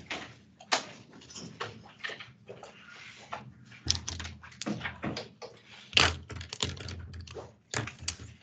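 Handling noise: an irregular run of clicks and knocks of paper and small objects, as pages are turned to the notes, over a faint low hum.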